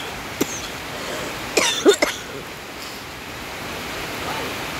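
A person coughing, a single cough and then a quick run of three about two seconds in, over the steady hiss of heavy rain falling.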